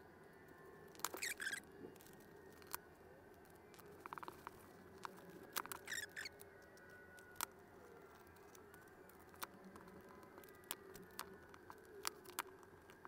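Hobby knife blade cutting a paper label out of the control holes in a plastic box lid: faint scratching and light clicks, with short scrapes about a second in and again around six seconds in.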